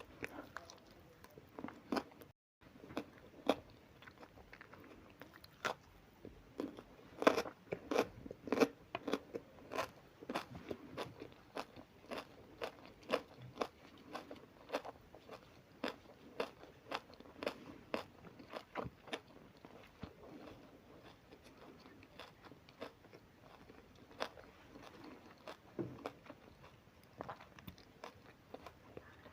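A person chewing and crunching food close to the microphone: irregular crisp crunches and mouth sounds, several a second at the busiest, with a brief cut in the audio about two seconds in.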